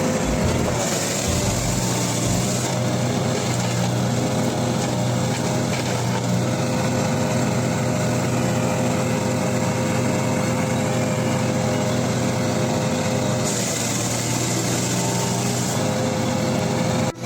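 A wood chipper's small engine running at a steady speed, with an even drone and a constant whine. There is a brief dropout just before the end.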